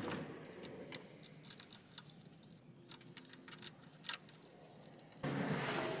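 Faint, irregular light metallic clicks and clinks of a spark plug socket and extension as new spark plugs are threaded into the cylinder head. A steady rush of noise comes in about five seconds in.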